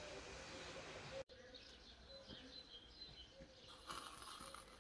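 Near silence: faint outdoor ambience with birds chirping quietly in the background.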